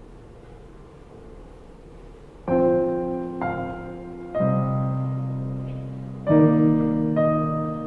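Background music: slow piano chords, each struck and left to die away, starting about two and a half seconds in after a faint steady hum.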